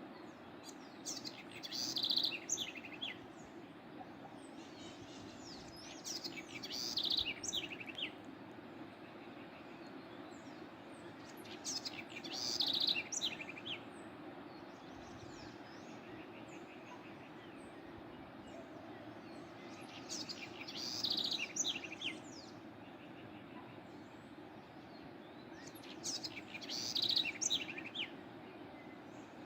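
A songbird singing five short warbling phrases, a few seconds apart, over the steady rush of a waterfall.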